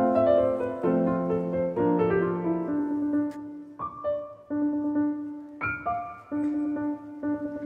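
Slow background piano music, with notes and chords struck about once a second and left to ring.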